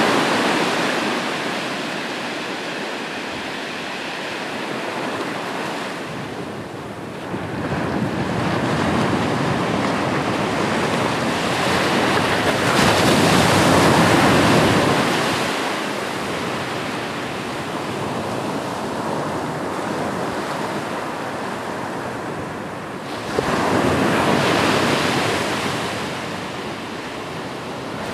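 Ocean surf: waves breaking and washing up the shore in slow swells that rise and fall every several seconds. A wave crashes in sharply about a quarter of the way in and again near the end, and the biggest swell comes about halfway through.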